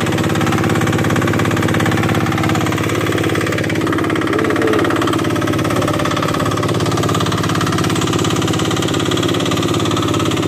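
Fishing boat's engine running steadily at a constant speed.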